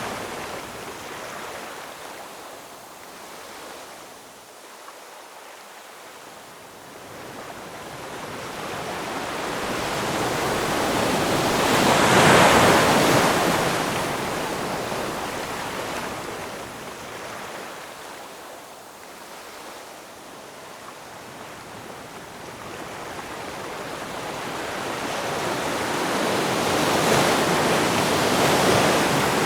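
Ocean waves breaking on a shore: a rushing wash of surf that swells to a peak about twelve seconds in, ebbs away, and builds to a second peak near the end.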